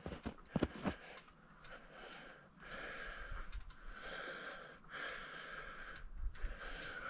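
A person breathing audibly close to the microphone, in soft hissing breaths of one to two seconds each, with a few light knocks in the first second.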